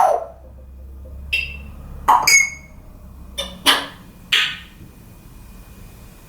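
African grey parrot whistling and calling: a falling whistle at the start, then about six short, sharp whistles and squawks over the next few seconds.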